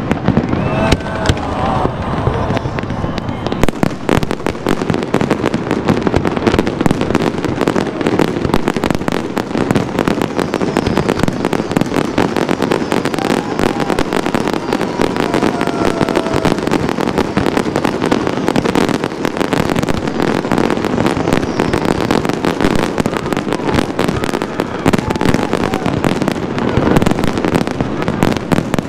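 Fireworks display at full barrage: aerial shells bursting one after another in a dense, continuous run of bangs and crackling, with no break.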